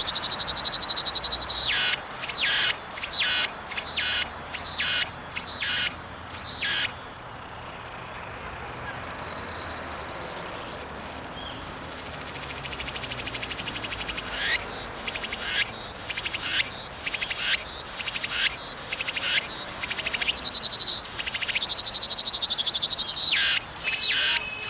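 Cicadas singing: a continuous high buzz broken by runs of short, rhythmic pulses, about two to three a second, that come and go in phrases.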